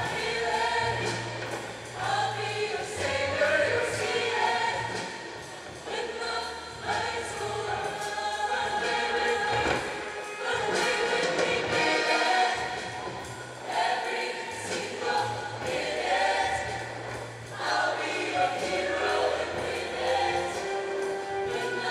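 Show choir singing in harmony with a live backing band, a bass line holding notes underneath.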